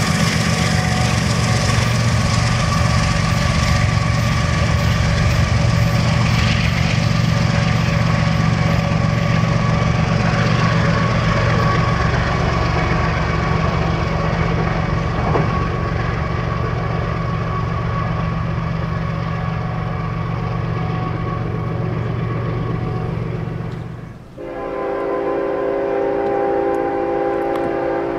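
Diesel-hauled freight train running past at speed, with a steady heavy rumble of locomotives and loaded coal hoppers on the rails. About 24 seconds in, the sound breaks off abruptly and a locomotive air horn sounds a steady, held multi-note chord.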